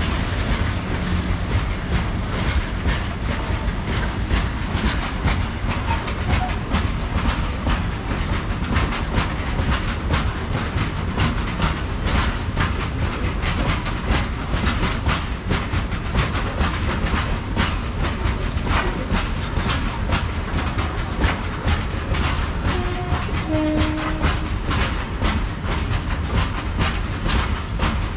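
Freight train of BOXN open wagons rolling slowly past, its steel wheels clicking over the rail joints in a steady clickety-clack over a deep rumble.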